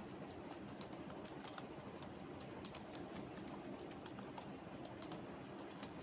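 Typing on a computer keyboard: irregular runs of key clicks over a steady low background hum.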